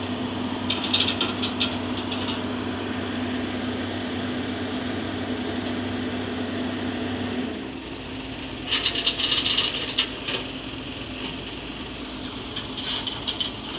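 Caterpillar 320C hydraulic excavator's diesel engine running steadily, with short bursts of metallic rattling about a second in, again around nine seconds in and near the end.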